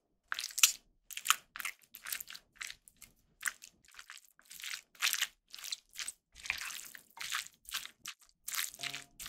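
A wooden spoon mixing saucy stir-fried squid, fried egg and rice in a ceramic bowl: a run of wet squishing and scraping strokes, about two a second, starting a moment in. Light music begins at the very end.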